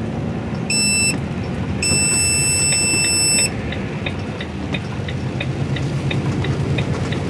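HGV truck cab on the move: low engine and road drone with a steady ticking about three times a second. A high electronic warning beep sounds twice, briefly about a second in, then for about a second and a half from two seconds in.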